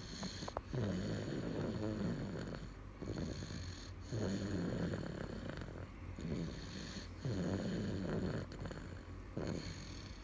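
A sleeping baby snoring: three slow snoring breaths, each about two seconds long, coming about three seconds apart.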